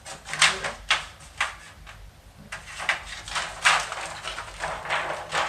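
Irregular handling noises from a computer case being moved about: a series of short scrapes and knocks, the loudest about half a second in and again near the middle.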